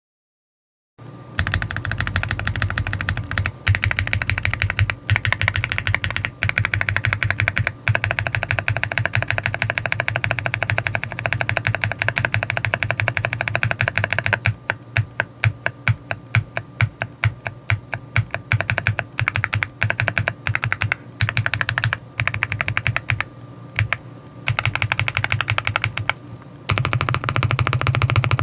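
Typing on a Rainy75 full-aluminium mechanical keyboard with Real HX switches: fast, continuous keystrokes, slowing to separate, distinct key presses from about halfway, then fast typing again near the end.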